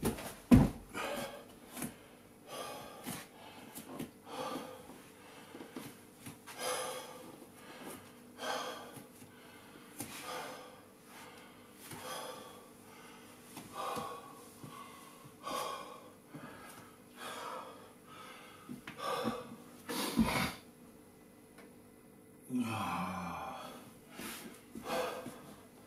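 A man breathing hard in quick, repeated gasps, about one breath a second, from the exertion of exercise. There is a single thump about twenty seconds in, and a short falling groan soon after.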